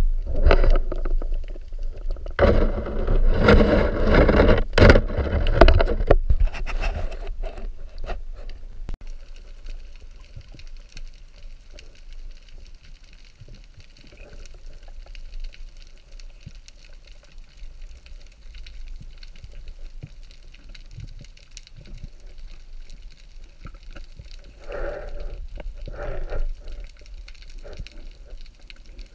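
Underwater noise picked up by a camera in its waterproof housing while a spearfisher swims over the seabed: water rushing with knocks, loud for the first six seconds or so, then a low steady rumble with faint clicks and two short swells of noise near the end.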